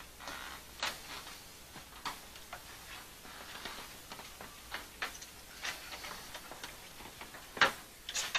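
Scattered light clicks and knocks at irregular intervals, the loudest about three-quarters of the way through.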